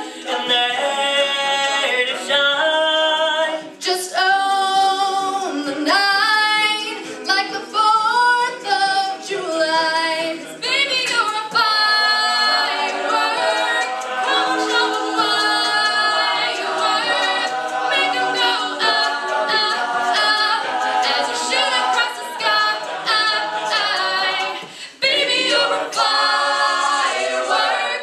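Mixed-voice a cappella group singing a pop song: lead voices over a layered vocal backing, with no instruments.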